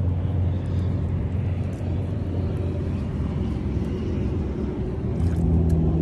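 Steady low rumble with a hum, a little louder about five seconds in, with faint small ticks over it.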